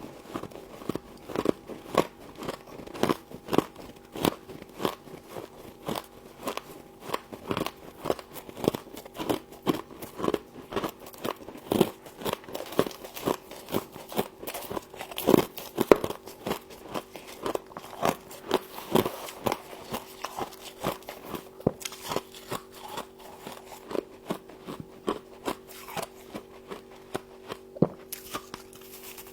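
Close-up crunching of freezer frost being bitten and chewed: a long run of sharp, crisp crunches, roughly one to two a second, over a faint steady hum.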